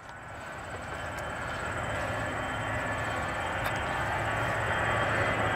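Jet aircraft engines heard as a steady roar that grows slowly louder as the plane nears.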